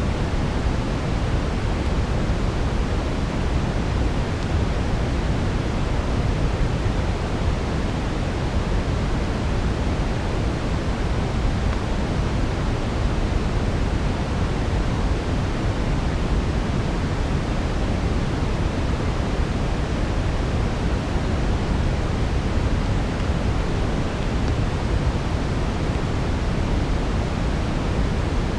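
Steady brown noise, an even deep rush strongest in the low end and fading toward the highs, unchanging throughout with no distinct crackles standing out.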